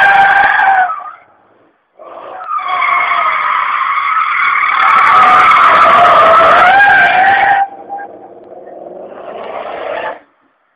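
Mercedes car's tyres squealing loudly in long skids, the squeal breaking off about a second in and starting again about two seconds in. About seven and a half seconds in the squeal stops and the engine runs quieter until it cuts off near the end.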